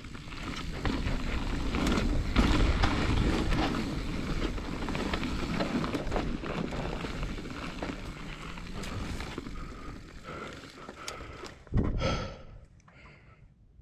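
Mountain bike riding down a dirt singletrack: tyres rolling over dirt and pine needles, with frequent rattles and knocks from the bike over bumps. About twelve seconds in there is a short loud rush, then the riding noise stops and it goes quiet.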